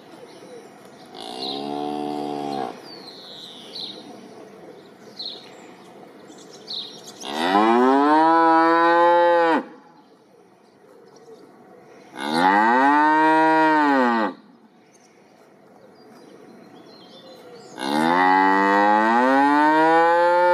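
Cow mooing: one shorter moo, then three long, loud moos, each rising and then falling in pitch. Faint bird chirps come between them in the first few seconds.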